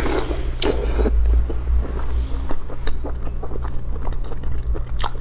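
A person chewing a mouthful of food, with wet mouth clicks and smacks scattered through, the densest in the first second, over a steady low hum.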